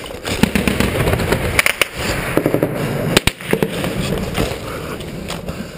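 Gunfire in a firefight: scattered, irregularly spaced sharp shots cracking out amid the machine-gun fire of an ambush.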